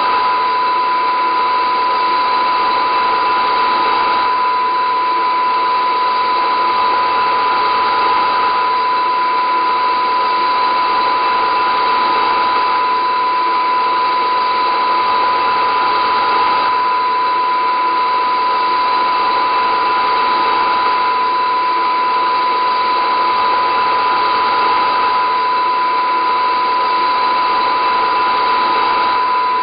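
A steady, unchanging drone: a dense wash of noise with a constant high tone running through it, holding the same loudness throughout.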